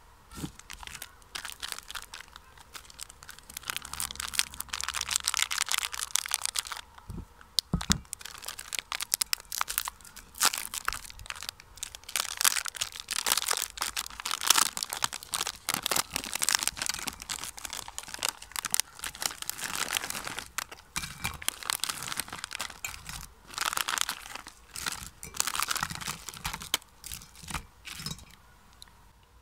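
Crinkling and tearing of a foil-lined plastic wrapper on a pack of wafer biscuits as it is torn open, in irregular bouts, with light clicks and crunches as the crisp wafers are taken out and laid in an enamel bowl.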